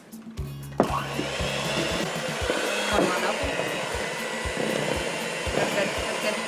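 Electric hand mixer switched on about a second in and running steadily, its beaters churning thick cake batter, over background music with a steady beat.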